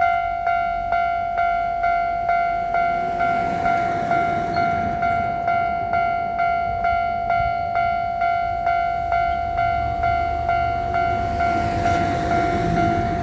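Japanese railway level-crossing warning bell starting suddenly and ringing on in a steady, repeated electronic ding, a little over two strokes a second: the crossing signalling that a train is coming and the gates are closing.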